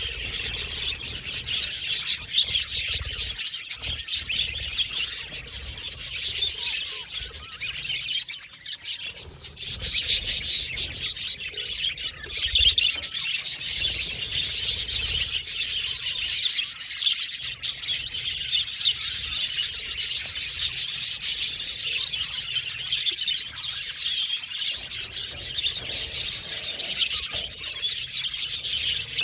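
A flock of budgerigars chattering and chirping continuously, many birds overlapping at once, with a short lull about eight seconds in.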